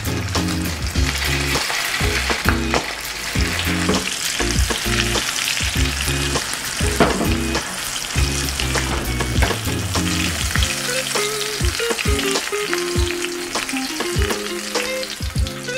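Battered prawns deep-frying in hot oil in a wok: a steady sizzle with many small crackles and pops.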